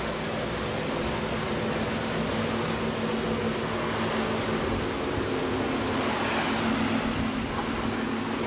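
Steady drone of a motor yacht's twin Chrysler V8 marine engines running underway, a low even hum under a constant rushing noise.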